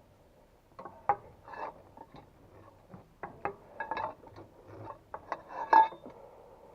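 Hand tools clinking and knocking against steel while working on a crane-base bolt: irregular metallic clicks and clanks, a sharp one about a second in and the loudest near the end.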